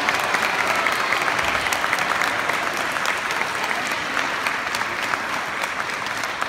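Applause: many people clapping together in a dense, steady patter that eases off slightly near the end.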